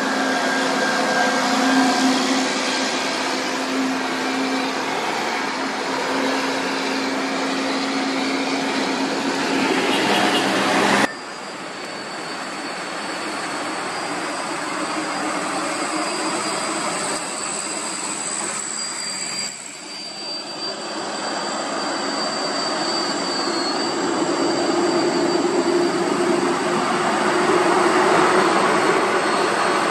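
Diesel engine of a Volvo tractor unit running as the truck pulls past close by. About a third of the way in it cuts abruptly to a quieter scene with a steady high whine in the background. A Scania truck hauling an excavator then climbs toward the microphone, its diesel engine growing steadily louder.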